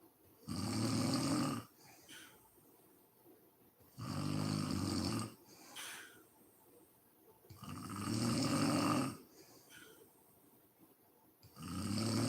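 A sleeping woman snoring: four snores, each a second or more long, coming about every three and a half seconds, with faint breaths between them.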